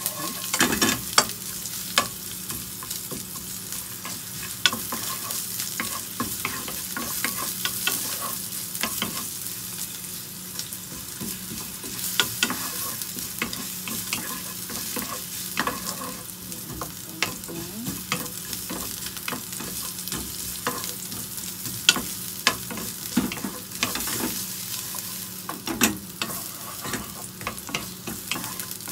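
Sliced ginger sizzling in hot oil in a nonstick frying pan while a wooden spatula stirs it, its edge knocking and scraping against the pan in frequent sharp clicks.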